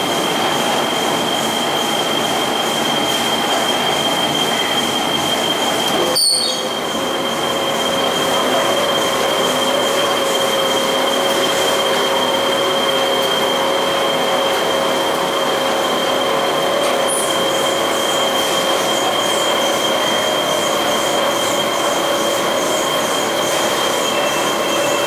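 Industrial washer extractor running: a steady mechanical noise with a high-pitched whine throughout. After a brief break about six seconds in, a lower whine joins it and holds steady.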